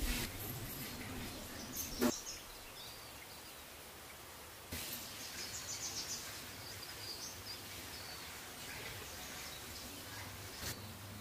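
A metal serving spoon clinks against a steel platter three times as rice is spooned onto it, the loudest clink about two seconds in, over steady background noise with faint bird chirps.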